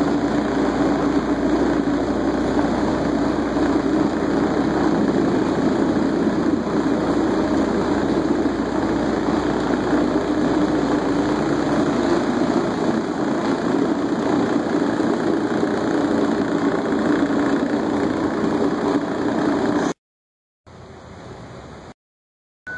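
Rotary brush floor machine running steadily, its motor humming as the pad scrubs stone tile; the sound cuts off suddenly about twenty seconds in.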